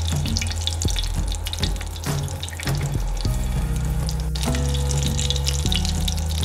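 Kue lumpur batter sizzling and crackling as it is poured from a jug into hot melted butter in the cups of a mold pan. Background music with sustained low notes runs underneath.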